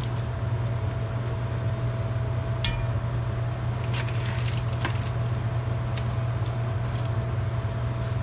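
Scattered light metallic clinks and taps of a utensil against a pot as braised rabbit pieces are moved into a Dutch oven of sauce, over a steady low kitchen hum.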